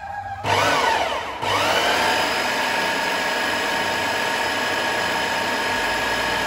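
Electric blender with a chopper bowl grinding raw chicken, egg, garlic and ice water into meatball paste. The motor starts about half a second in, wavers and dips briefly about a second in, then runs at a steady pitch.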